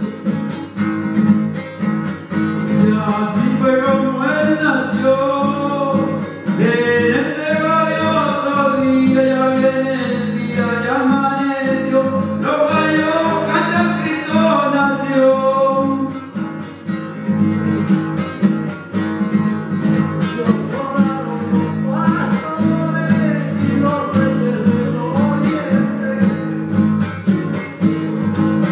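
Canto a lo divino: a man sings a slow devotional verse into a microphone over a strummed acoustic guitar. Toward the end the voice stops and the guitar carries on alone.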